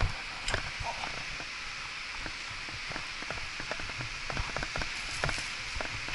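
Mountain bike rattling over a rough sandy path, with irregular clicks and knocks as it bumps over the ground, over a steady hiss.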